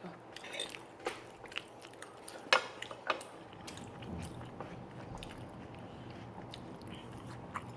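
Watermelon being bitten and chewed close to the microphone, with scattered sharp clicks. The loudest click comes about two and a half seconds in.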